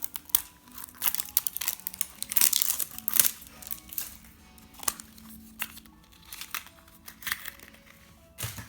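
Crinkling and rustling of a squishy toy's plastic packaging being handled and torn open, in irregular crackles that are busiest in the first half. Soft background music with held notes plays underneath.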